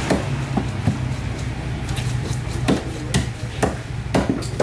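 A knife cutting raw fish flesh on a wooden chopping block. The blade knocks the wood in irregular sharp taps, about two a second.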